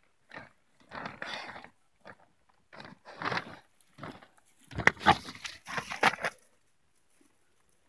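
A pig nosing into plastic sheeting over a hay pile: a string of irregular crinkling, crunching rustles, busiest around five to six seconds in, then stopping.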